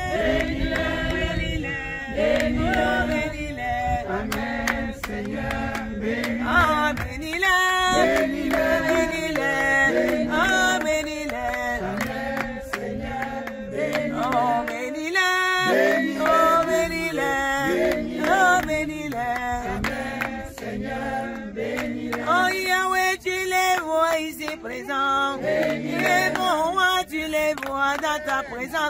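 Several voices singing a slow prayer chant together, the melody rising and falling in sung phrases.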